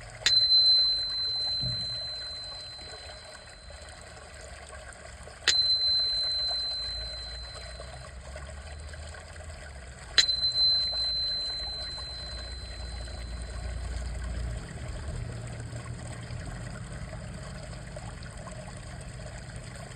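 A small high-pitched bell is struck three times, about five seconds apart; each strike rings out as one clear tone that fades over a few seconds. Underneath, a bamboo water fountain trickles steadily.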